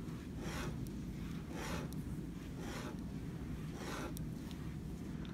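Pen drawing long straight strokes on paper: four scratchy sweeps, about one a second, over a steady low room hum.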